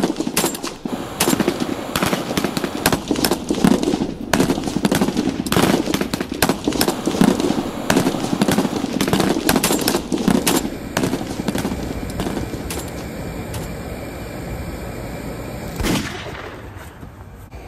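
Rapid, dense volleys of sharp bangs, like machine-gun fire, for about ten seconds, then thinning into a quieter rumble with one last sharp crack near the end.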